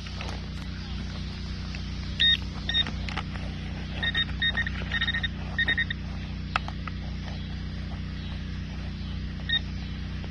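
Garrett pinpointer giving short high beeps, singly and in quick clusters, as its tip is pushed into wood-chip mulch: it is signalling a buried metal target close by. Light clicks and rustles of the chips come over a steady low hum.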